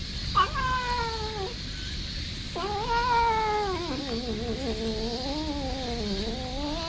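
Brown tabby cat meowing in a sing-song, humming-like way while being patted on the lower back, a sign that it is enjoying it. A short falling meow comes about half a second in, then a long meow that wavers up and down in pitch like a tune runs on past the end.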